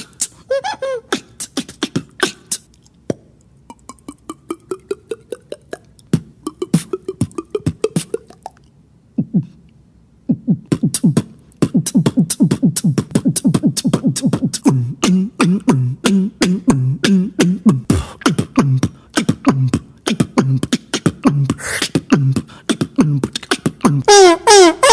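Beatboxer making vocal sound effects with the mouth: sharp clicks and pops with rising pitched hums in the first part, then a fast run of low pitched rhythmic pulses from about halfway. A loud falling glide comes at the very end.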